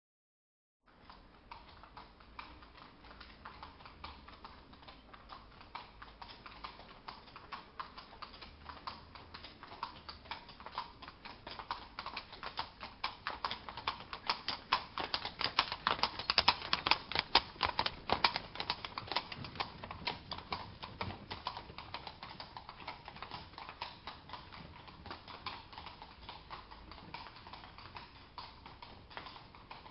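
Horse hooves clip-clopping on a hard street with a dense clatter. It starts about a second in, grows louder toward the middle and fades away again, as a horse passing by would.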